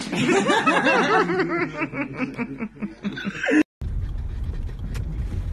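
A person laughing in quick repeated snickering bursts, cut off abruptly a little over three and a half seconds in. Then the steady low rumble of a car's cabin takes over.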